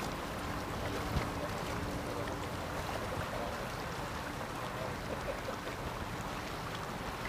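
Small canal tour boat under way, its motor giving a steady low hum under a wash of water and wind noise.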